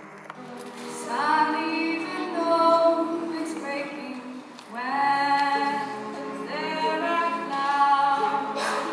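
A female lead voice singing phrases over a vocal group's sustained chords. The first phrase starts about a second in; a second begins a brief pause later, near the middle.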